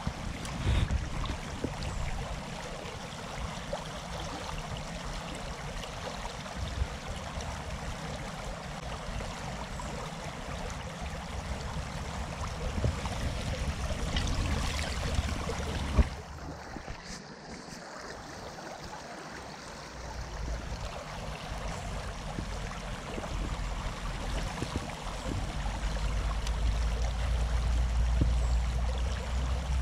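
Shallow river riffle running over gravel, a steady rushing of water, with a low rumble growing near the end.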